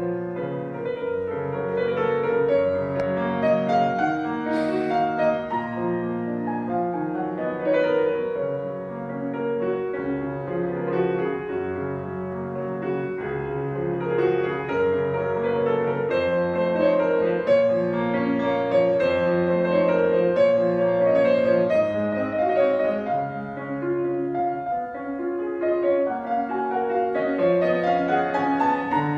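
Steinway grand piano played solo: a classical piece in continuous, overlapping sustained notes.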